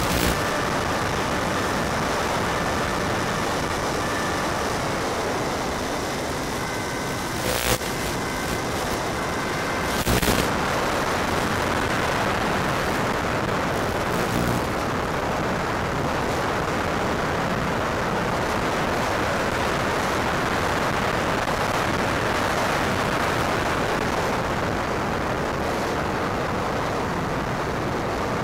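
Steady rushing hiss from the RC plane's onboard FPV audio, with a faint high whine from its electric motor in the first few seconds that fades out as the throttle is cut to a glide. Two short crackles come about eight and ten seconds in.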